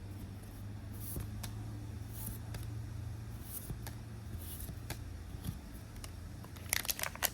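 Faint light ticks and rustles of trading cards being handled, then near the end a louder crinkling of a booster pack wrapper.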